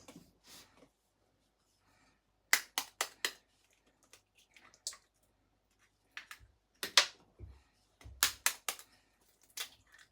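Eggs being tapped and cracked against the rim of a mixing bowl: several short runs of sharp cracking taps with pauses between them.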